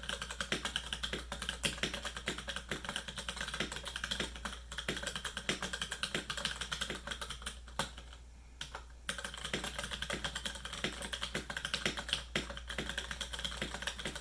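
Typing on a Keychron K6 mechanical keyboard with Gateron Brown tactile switches: a fast, continuous stream of keystrokes, with a brief pause about eight seconds in.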